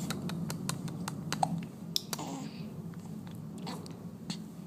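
A quick run of small, sharp clicks and smacks, dense for about two seconds and then sparser.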